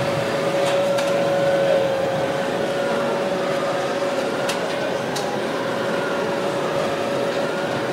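Delta 3D printer running: its stepper motors give faint whines that rise and fall in pitch, over a steady hum with one held tone.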